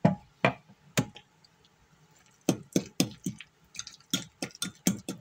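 Chives being cut with a kitchen utensil: three sharp taps about half a second apart, then after a short pause a quick run of taps, several a second.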